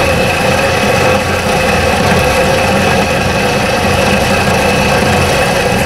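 Small 12-inch bandsaw running and slowly cutting through a plate of aluminium a little over half an inch thick, a steady hum and whine. The blade is a fine-toothed one that is probably too fine for aluminium.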